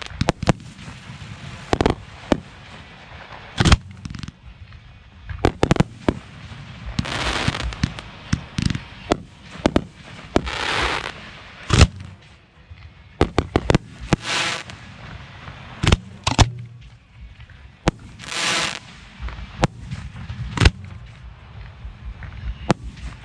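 Professional 1.3G display fireworks heard from among the mortar racks: shells firing from their mortar tubes and bursting, a steady run of sharp bangs at uneven intervals. Several hissing stretches about a second long come between the reports.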